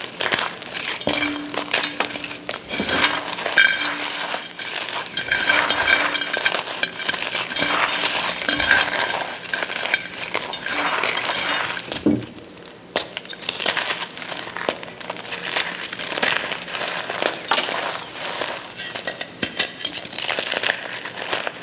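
Reformed gym chalk being crushed: a dense, continuous run of crunching and crackling, with a brief lull about twelve seconds in.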